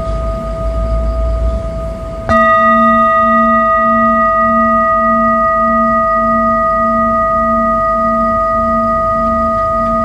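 Metal singing bowl ringing in a steady chord, struck once with a mallet about two seconds in, then ringing on with a slow pulsing wobble about twice a second.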